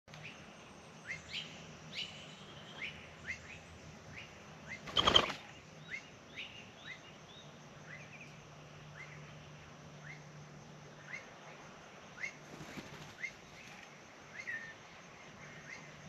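Small birds chirping over and over in short rising calls. About five seconds in comes a brief, loud flutter of wings as a crested pigeon lands.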